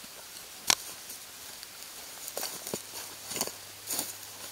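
Footsteps of two people walking off through grass, with clothing and brush rustling. A sharp click comes under a second in, followed by several short rustling steps.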